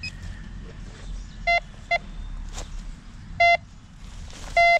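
Metal detector sounding four short, identical mid-pitched beeps as its search coil passes over a freshly dug hole, signalling metal still in the hole. A single faint click comes between the second and third beep.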